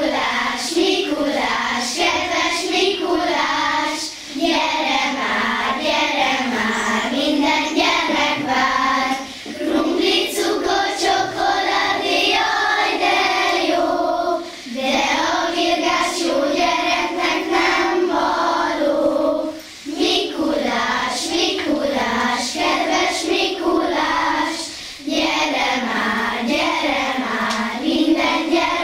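A group of children singing a song together, in phrases of about five seconds with short breath pauses between them.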